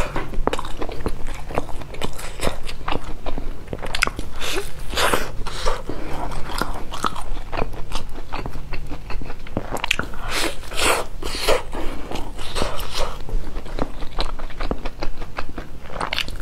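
Close-miked biting and chewing of a pan-fried flatbread filled with greens and shredded carrot, with crisp crunches.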